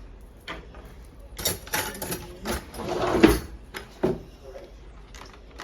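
Eggs being cracked against a container, heard as a series of sharp taps and knocks, the loudest about three seconds in.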